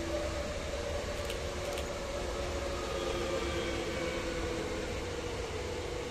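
Two coupled Newag Impuls 2 electric multiple units passing at speed: a steady rumble of wheels on rail with a traction hum holding a few steady tones. Two faint clicks a little over a second in.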